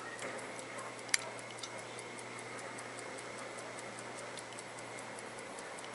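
Elgin pocket watch ticking steadily at about five ticks a second, the reassembled movement running in its case. One sharper click comes about a second in.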